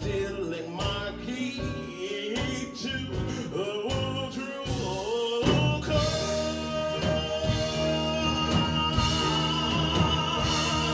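Live band music with singers: vocals over piano, bass, drums and horns. The accompaniment fills out and grows louder about five and a half seconds in.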